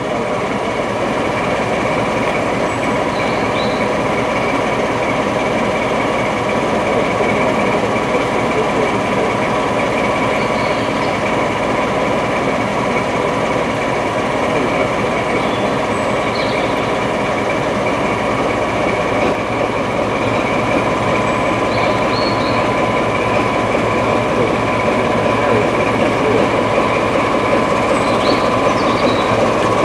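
Heritage diesel train running steadily: a continuous engine drone with a steady whine, slightly louder near the end.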